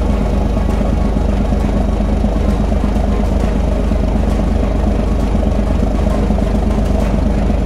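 A fishing boat's inboard diesel engine running steadily at idle, a constant low hum with no change in speed.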